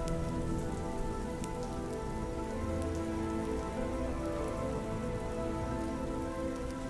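Steady soft rain, with sustained ambient music chords held underneath and a few sharp crackles.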